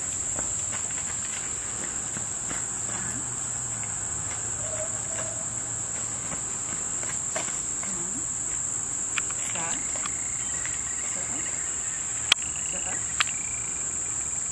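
Steady, high-pitched insect chorus, with two sharp clicks near the end.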